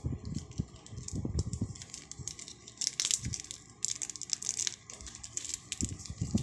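Plastic packet being torn open and crinkled by hand: irregular crackling and rustling with dull handling bumps.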